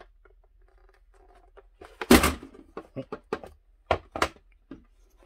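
Hard plastic playset parts being handled and fitted together: one loud thunk about two seconds in, then a run of sharp clicks and knocks as a door piece is worked into place.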